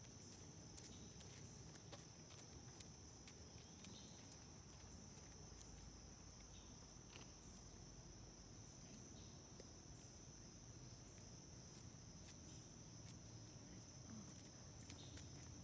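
Faint insect chorus: a steady, high-pitched unbroken trill, with a few faint scattered ticks.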